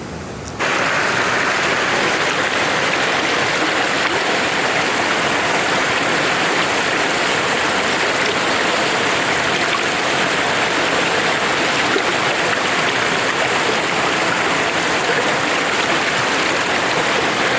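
Steady rush of flowing water, as of a stream, starting abruptly about half a second in and holding an even level.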